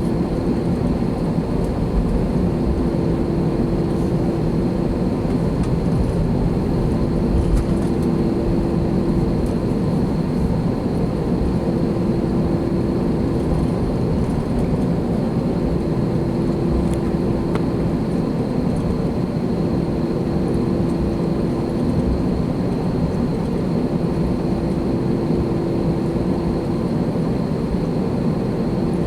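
Steady engine and air-conditioning drone inside the cabin of an Airbus A321 holding at number 1 for takeoff. The level stays even, with no engine spool-up, and a low hum comes and goes every few seconds.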